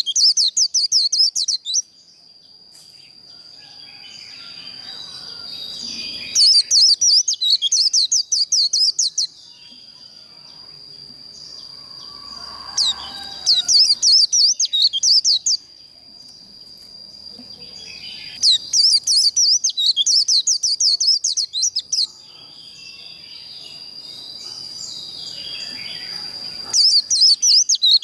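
White-eye (vành khuyên) singing its fast twittering 'líu' song in repeated bursts of two to three seconds, about every six seconds, five times. A steady thin high tone runs underneath.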